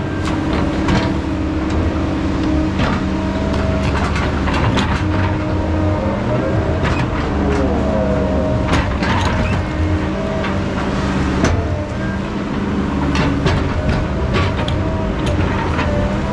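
Heavy logging machinery's diesel engine running steadily, with frequent knocks and clanks over it.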